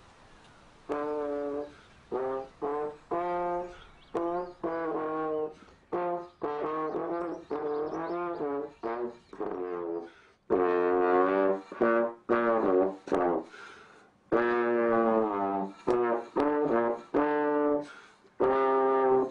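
Slide trombone played solo: a slow melody of separate held notes with short breaks between them, louder in the second half.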